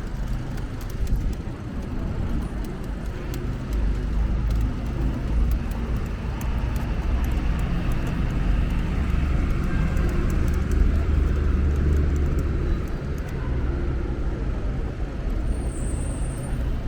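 Street traffic: motor vehicles running, with one engine's low hum building up through the middle and easing off again. A brief high squeak near the end.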